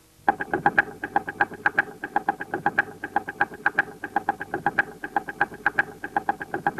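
Clockwork mechanism ticking in a quick, even rhythm of about five sharp ticks a second, starting just after a bell tone has died away.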